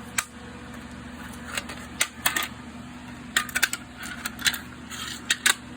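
Sharp clicks and taps from handling a Fast IRC-1 fire alarm control panel, several in quick succession about halfway through, over a steady low hum.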